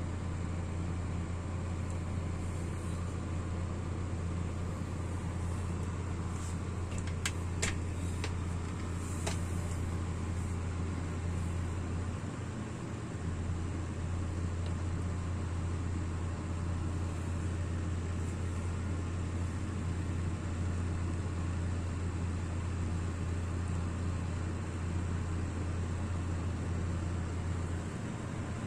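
Chinese Model 2608 kerosene stove burning with a steady low rumble, its burner lit and glowing. A few light clicks come about a quarter of the way through.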